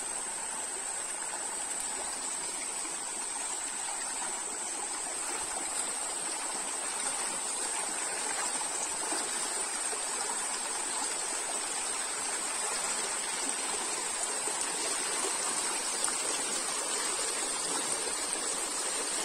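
Small rocky stream running over stones: a steady, even rush of shallow water, with a steady high-pitched whine above it.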